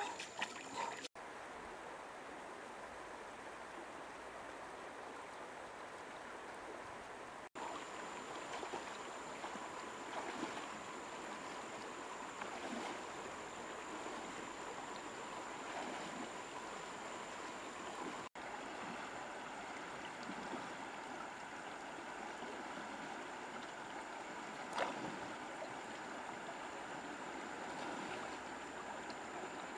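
Shallow river running over stones, a steady rush of water. Feet splash through the water at the start, and there is a single sharp knock late on.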